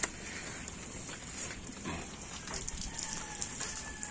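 Faint distant animal calls over a steady background hiss, with a brief thin whistle-like tone near the end.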